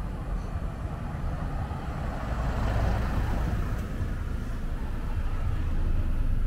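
Street traffic: a car passes close by, its engine and tyre noise swelling to a peak about three seconds in, over a steady low rumble.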